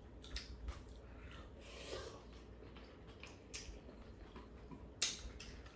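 Faint eating sounds: two people chewing noodles, with scattered soft clicks of chopsticks and a spoon against bowls and one sharper click about five seconds in.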